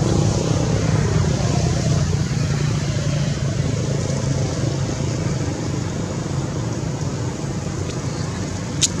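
Steady low hum of an engine running, with a short high squeak just before the end.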